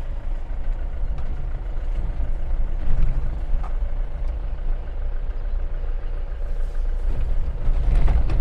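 Moving vehicle's engine and tyre noise heard from inside it on a winding hill road: a steady low rumble.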